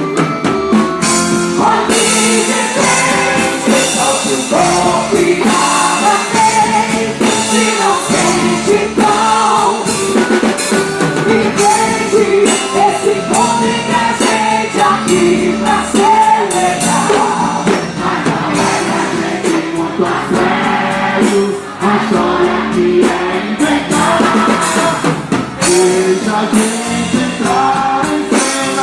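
Loud music with singing and a steady percussion beat.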